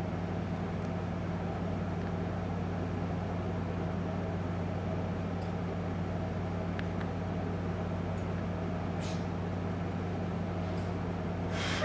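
A steady low hum that runs on without change, with a few faint ticks and a louder brief rustle right at the end.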